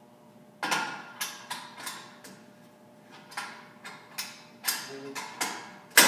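Sharp metallic clicks and clanks from handling the lid and clamp of a stainless steel fermentation tank, about a dozen irregular knocks that ring briefly. The loudest comes near the end.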